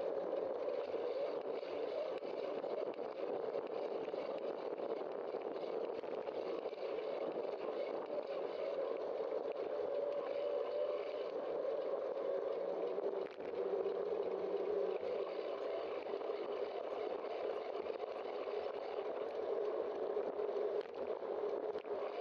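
Steady rushing of wind and tyres from a moving bicycle, picked up by a bike-mounted camera's microphone, with a brief dip about thirteen seconds in.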